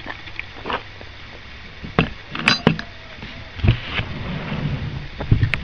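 Scattered knocks and light metallic clinks from handling an old canvas-and-wood trunk: its lid and metal clasps and fittings being worked, about seven separate sharp sounds.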